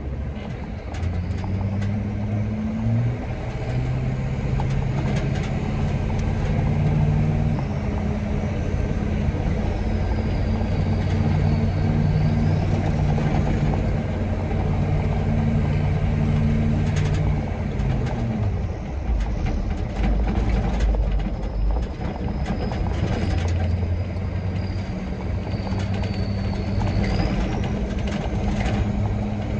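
Engine of a US military truck on the road, running steadily. Its note steps in pitch a few times and drops clearly about 18 seconds in, then settles again. A faint high whine comes and goes.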